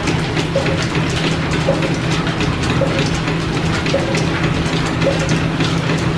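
Belt-driven line-shaft machinery running with a steady hum, and a regular click a little slower than once a second.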